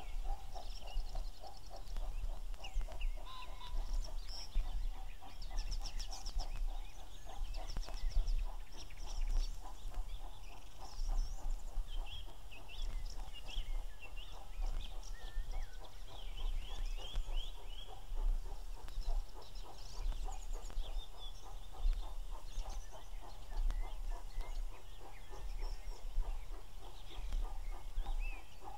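Several birds chirp and call, over a continuous rapid low bubbling call. Underneath is a faint low rumble from a distant steam locomotive hauling a freight train up a gradient.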